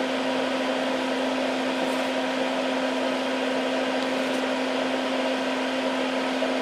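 Hakko smoke absorber (soldering fume extractor) fan running steadily: a constant whir with a steady low hum.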